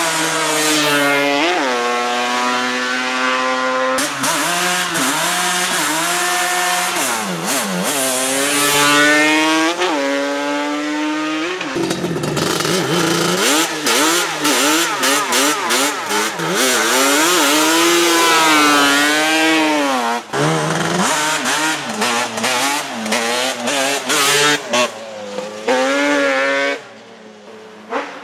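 Yamaha Banshee's twin-cylinder two-stroke engine, breathing through Toomey T5 expansion pipes, revving hard and climbing through the gears as the quad comes up the road. After that the throttle is blipped in short, choppy revs, rising and falling with many quick cuts, until the engine sound drops away sharply near the end.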